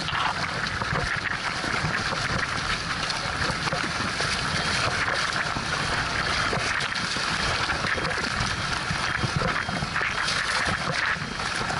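Steady rush of wind buffeting the microphone and choppy water splashing and washing along the hull of a Triak sailing kayak under sail in high wind.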